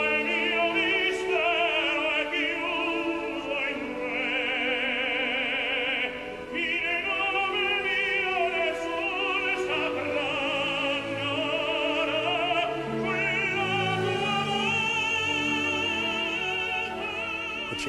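An operatic singer sings long, sustained phrases with wide vibrato over an orchestra, the voice ringing out above the accompaniment.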